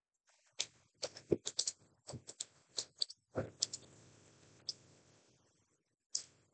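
Typing on a computer keyboard: a quick, irregular run of keystrokes over the first four seconds, then two single key presses.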